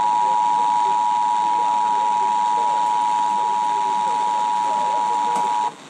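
Emergency Alert System two-tone attention signal, a steady two-note alarm tone over radio hiss, that cuts off sharply near the end and leaves hiss with faint muffled voices. It is the alert tone that precedes a relayed severe thunderstorm warning.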